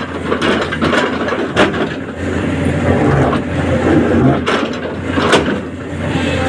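Tracked excavator's diesel engine running steadily, with sharp clanks and knocks from the machine's working parts, the loudest about 1.5 s and 5.3 s in.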